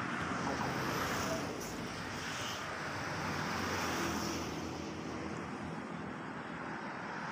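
Steady road traffic noise, a continuous rush of passing vehicles mixed with wind on the microphone.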